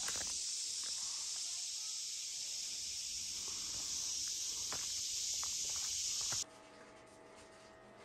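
A steady, high-pitched chorus of summer insects droning in woodland, with a few faint footsteps on a dirt trail. About six and a half seconds in it cuts off suddenly, leaving quiet indoor room tone with a faint hum.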